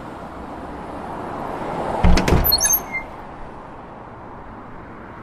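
A steady background noise, broken about two seconds in by two or three sharp knocks, followed by a few brief high-pitched squeaks.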